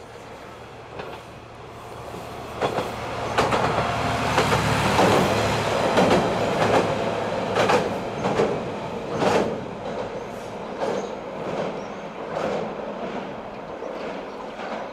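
Diesel railcar passing, its wheels clacking over the rail joints in a regular rhythm. It grows loud about three seconds in and then fades slowly as it moves away.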